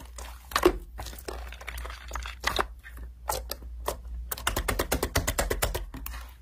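Thick yellow slime being squeezed and stretched by hand, giving off a run of sharp clicks and crackles as the air pockets in it pop. The clicks come thick and fast a little past the middle.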